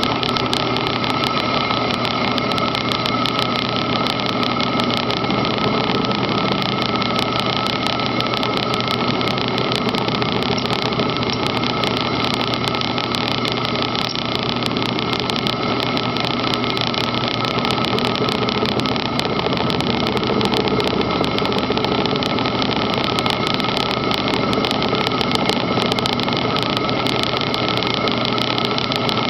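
Enco manual milling machine running steadily with an end mill cutting slots in steel: a constant mechanical whine under a dense, even crackle of clicks.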